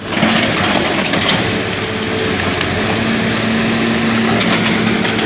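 CAT hydraulic excavator engine running with a steady hum while demolishing an old masonry building, mixed with the crunch and clatter of broken brick and rubble.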